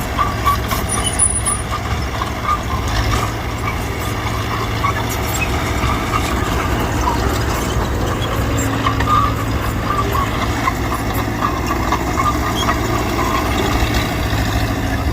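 Mitsubishi BD2G crawler bulldozer's diesel engine running steadily at work, with light scattered metallic clinking.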